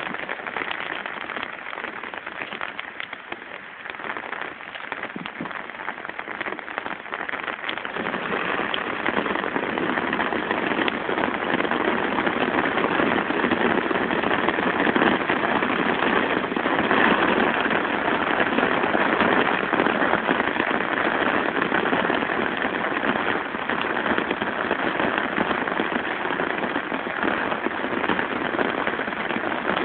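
Heavy rain pouring down in a dense crackling patter. It grows louder about eight seconds in and stays heavy.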